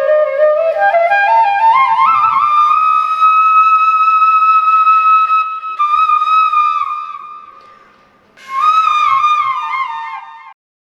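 Instrumental intro music: a single wind-instrument melody climbing note by note to a long held note that fades away, then a short falling phrase that stops abruptly near the end.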